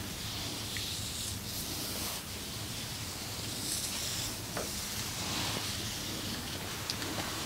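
Hands rubbing over skin in a massage: soft swishing strokes that swell and fade again and again, over a steady low hum.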